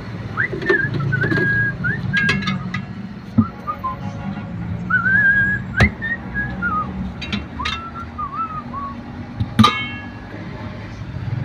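A person whistling a wandering tune, while a steel tyre lever clinks against the truck wheel's steel rim; the loudest clink, near the end, rings briefly.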